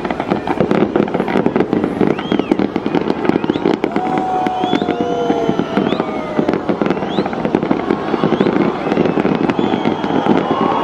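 Fireworks display: a dense, continuous crackle of many small rapid bursts, with scattered bangs and gliding whistle-like tones over it.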